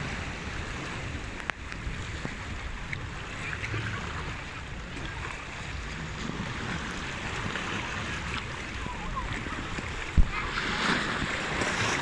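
Small sea waves washing in between rocks in the shallows, water lapping and gurgling through the gap. A single sharp thump about ten seconds in, then a louder rush of splashing water near the end.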